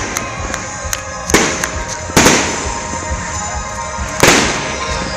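Aerial fireworks bursting: three loud bangs, about a second and a half in, just over two seconds in and near the end, with smaller pops and crackles between them.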